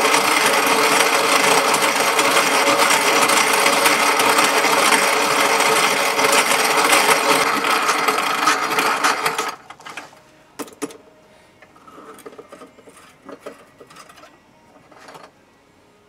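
Antique cast-iron hand-crank coffee grinder grinding coffee, a steady loud grind that stops about nine and a half seconds in. Afterward, scattered light clicks and knocks.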